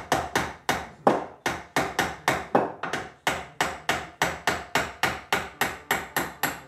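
Steady hammer or mallet taps, about three a second, knocking a steel vise nut back out of its tight-fitting mortise in a soft maple board.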